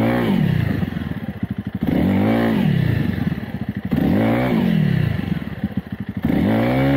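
Dirt bike engine revved up and dropping back four times as the clutch is popped: the rear wheel briefly breaks traction and spins on the dirt each time.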